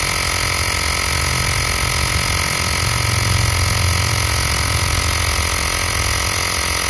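Xiaomi portable electric air compressor running steadily as it pumps up a car tyre, an even, fairly loud mechanical hum that doesn't change.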